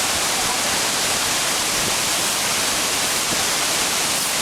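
Water of the Minoh waterfall and its stream pouring in full flood after a typhoon, a steady, dense rush of noise with no let-up.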